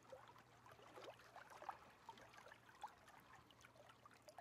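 Small lake waves lapping faintly over rocks and sand, in scattered light splashes and trickles.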